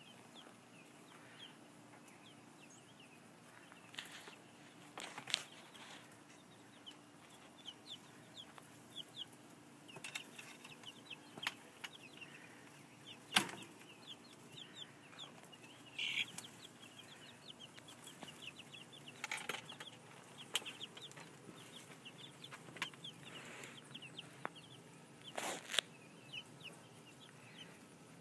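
Two-week-old chicks peeping: a steady scatter of short, high, falling cheeps, with a few sharp knocks and rustles among them, the loudest knock about halfway through.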